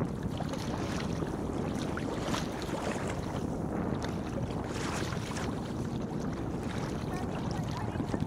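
Wind buffeting the microphone over the wash of choppy water against a kayak's hull, with a few splashes from paddle strokes.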